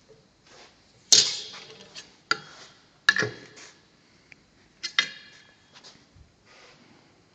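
Sharp metal-on-metal clanks with brief ringing from a steel sword handled on an anvil: four loud strikes at uneven intervals, between lighter clicks and taps.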